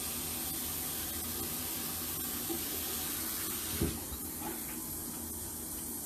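Steady running water, with a single short knock about four seconds in.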